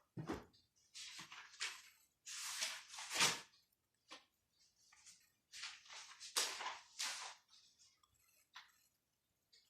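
Writing or drawing strokes on a writing surface: about a dozen short scraping sweeps, each under a second long, with pauses between them.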